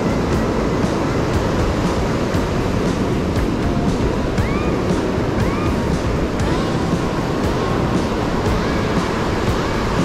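Ocean surf breaking on a beach, a steady rush of waves, with a few short high rising-and-falling whistles from about four seconds in.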